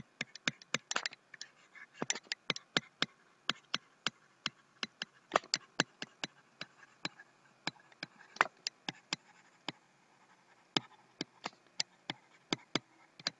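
A stylus tapping on a pen tablet during handwriting: a quick, irregular run of sharp taps as each stroke touches down and lifts, with a short pause about three-quarters of the way through.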